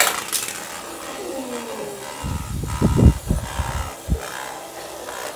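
Two Beyblade tops spinning in a plastic basin, a steady whirring and scraping as they glide around its bottom, with a few dull thumps about halfway through.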